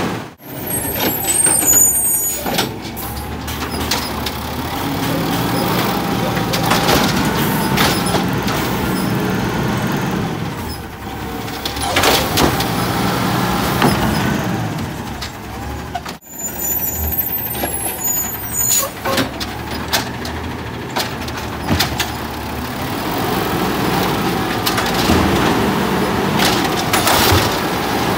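Automated side-loader garbage truck at work: the diesel engine revs as the hydraulic arm lifts and tips wheeled carts into the hopper, with repeated knocks and clanks from the carts and arm, and air-brake hiss. The sound breaks off abruptly about halfway through and picks up again.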